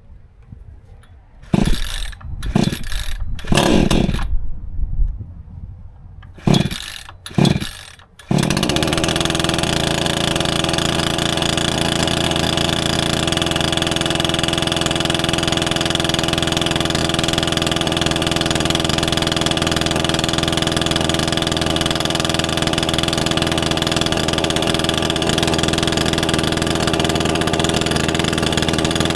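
Proyama chainsaw on an Alaskan chainsaw mill being pull-started: several short bursts as it is pulled over, then it catches about eight seconds in and runs steadily and loudly at an even speed.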